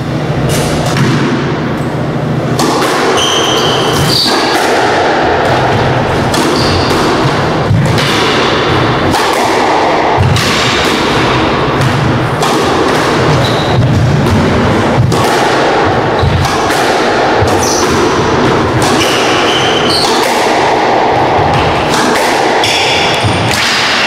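Squash rally: the ball is struck by rackets and hits the court walls in a string of irregular sharp knocks, with short high squeaks of shoes on the wooden floor, over a steady background noise.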